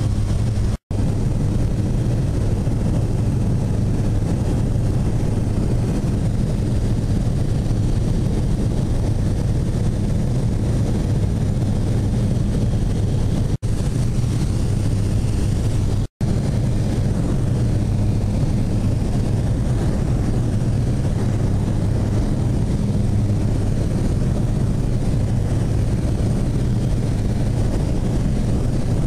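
Steady drone of a light amphibious floatplane's piston engine and propeller in cruise, heard inside the cabin, with a low, even hum. It cuts out abruptly for a split second three times: about a second in, and twice in quick succession near the middle.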